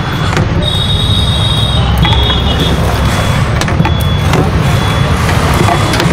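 Street traffic noise: a steady low rumble of passing scooters and other vehicles, with two short high-pitched tones about one and two seconds in.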